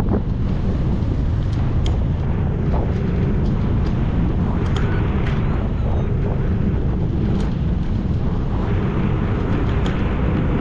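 Steady, loud wind buffeting the microphone, a dense low rumble of rushing air during hang-glider flight, with a few faint ticks.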